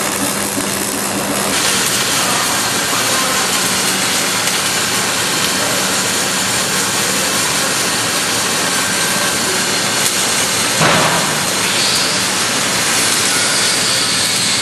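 Arc of an automatic pipe-welding system, running a flux-cored filling and cap pass: a steady, loud hiss. A short knock about eleven seconds in.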